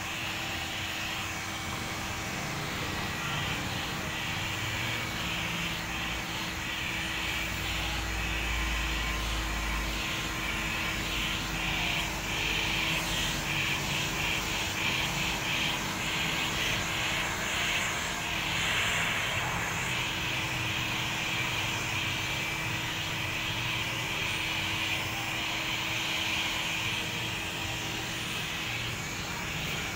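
Electric heat gun blowing steadily, heating window tint film so it shrinks to the curve of a car's glass. In the middle there is a run of quick rubbing strokes on the glass.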